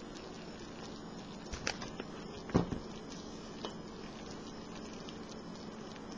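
Wooden spoon knocking and scraping against a stainless steel pot as pasta soup is scooped out: a few short clacks about one and a half to four seconds in, the loudest near the middle, over a steady low hiss.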